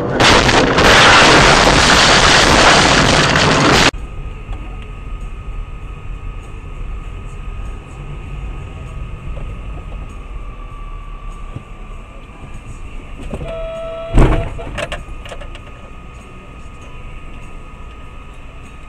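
Dash-cam audio of road vehicles: a loud rushing noise for about four seconds that cuts off abruptly, then a steady vehicle hum, broken about fourteen seconds in by a single sharp bang of a collision.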